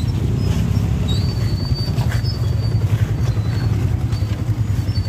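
A heavy diesel vehicle engine running with a steady low rumble close by, with a few brief thin high squeals over it.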